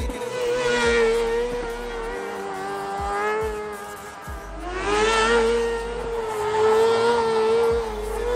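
Drift kart's Honda CBR600RR inline-four motorcycle engine, breathing through a Yoshimura exhaust tip, running at high revs and held there. It eases off about three seconds in and climbs back up a second and a half later.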